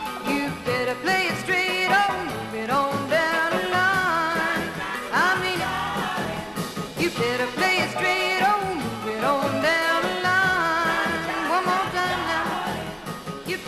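A song: a singing voice over band accompaniment with a steady beat.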